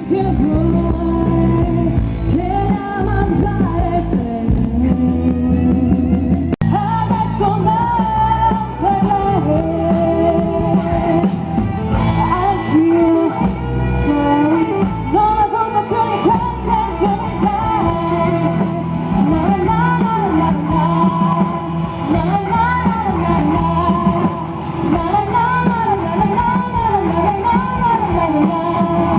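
Band music with a singing voice, in a rock style.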